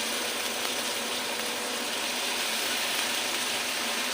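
Onion with garlic and chilli pastes frying in hot oil in a kadai: a steady sizzle.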